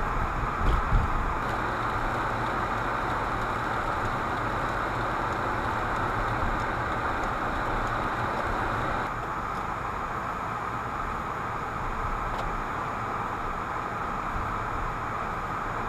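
Steady engine and road noise inside a moving car, picked up by a dashboard camera on the windshield; it becomes a little quieter about nine seconds in.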